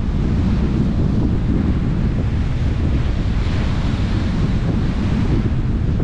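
Rough surf breaking and washing up a sandy beach, under a steady low rumble of wind buffeting the microphone. A wave's hiss swells about three seconds in and fades near the end.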